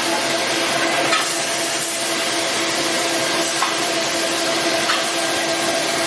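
Ice cream cup filling machine running: a steady mechanical hiss and hum with a held low tone and a few light clicks.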